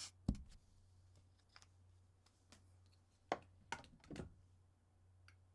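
Marker being handled: a sharp knock just after the start, then a quick cluster of sharp plastic clicks about three to four seconds in, over a faint low hum.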